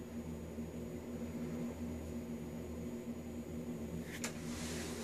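Steady low motor hum filling the small tiled room. About four seconds in there is a single click, followed by a brief soft hiss.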